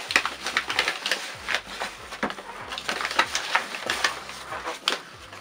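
A quick, irregular run of clicks and light taps from a spoon against a container as about a tablespoon of flour is scooped out.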